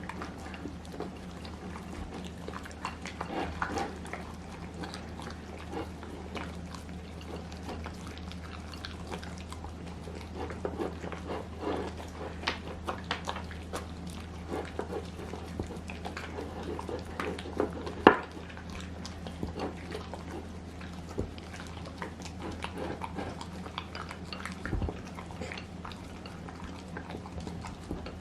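Dogs moving about and mouthing at things: scattered soft clicks and taps over a steady low hum, with one sharp knock about 18 seconds in.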